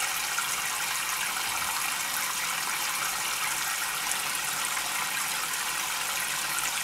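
Water falling in thin streams from a tabletop rain fountain's cloud and splashing into the shallow pool below: a steady, even hiss of falling water.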